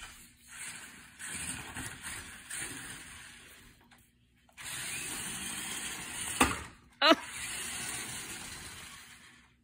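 Toy remote-control truck's electric motor whirring in two spells with a short break between. Two sharp knocks come about six and a half and seven seconds in, typical of the truck hitting something.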